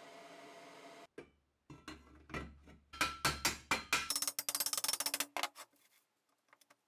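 Hammer striking a thin-walled square steel tube to bend a cut tab into a joint: a run of sharp metallic blows, spaced at first and then quickening into rapid taps, stopping about five and a half seconds in. Before the blows, a steady hiss cuts off abruptly about a second in.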